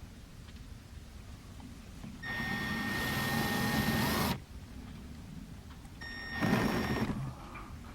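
Cordless drill driving screws into a light strip's mounting clamps: its motor whines at a steady pitch in two runs, about two seconds long starting a couple of seconds in, then a shorter one about a second long.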